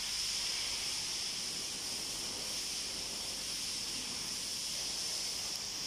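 Steady high-pitched hiss with no other sounds in it.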